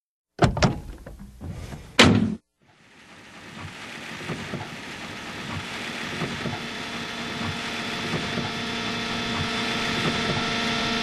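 Two sharp, heavy hits about a second and a half apart, each with a short ringing tail. After a moment of silence, a music track's intro fades in and swells steadily louder.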